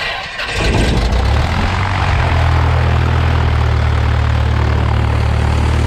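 1969 Cessna 172's Lycoming O-320 four-cylinder engine catching about half a second in and building to a steady idle with the propeller turning, settled into an even hum by about two seconds in.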